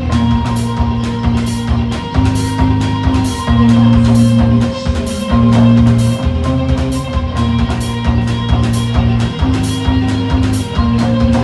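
Live rock band playing: electric guitars holding long low chords that change every second or so, over a drum kit keeping a steady beat with cymbals.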